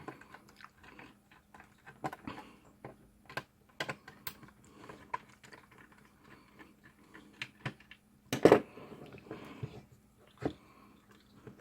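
Scattered small clicks and taps of a screwdriver and hard plastic being handled while screws are removed from a plastic worklight housing, with a louder burst of clatter about eight and a half seconds in.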